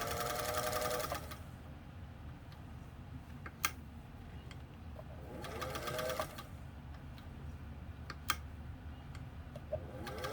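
Singer 201 sewing machine, its motor freshly rebuilt, sewing in short bursts: it runs up in pitch for about a second at the start, again about halfway through, and starts once more near the end. Two sharp single clicks come between the runs, and the machine is very quiet.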